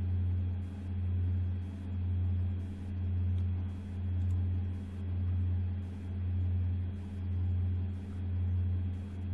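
Steady low background hum that swells and fades about once a second.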